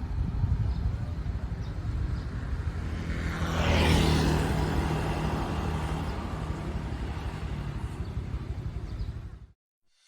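Low, noisy outdoor rumble that swells briefly about four seconds in, then fades away and cuts off near the end.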